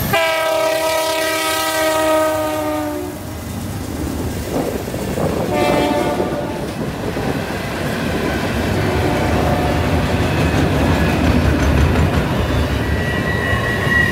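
CN freight locomotive air horn sounding one long blast of about three seconds, then a short blast about six seconds in. Then the steady rumble and clatter of freight cars rolling by, with a thin high wheel squeal starting near the end as they take the curve.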